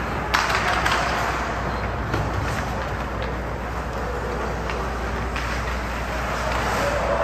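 Ice hockey arena ambience during play: a steady rumble and hiss with a few sharp clacks.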